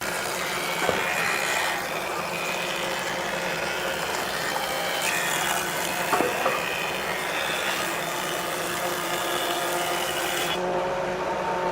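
Power tool running steadily as it works wood, its upper pitch thinning out about ten seconds in.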